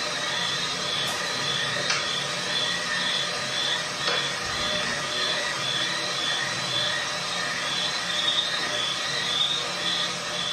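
A steady hiss with a faint high tone pulsing about twice a second and a few light clicks, presented as an unexplained noise caught by an unattended night-vision camera.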